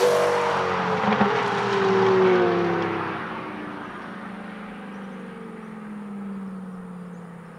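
Heffner twin-turbo Lamborghini Gallardo's V10 passing at speed and pulling away, its engine note falling in pitch and fading over several seconds.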